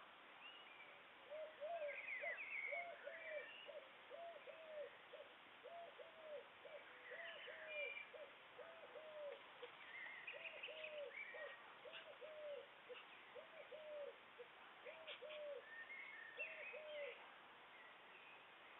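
A bird repeating a faint two-note hooting call about once a second, stopping near the end, with small birds chirping now and then above it.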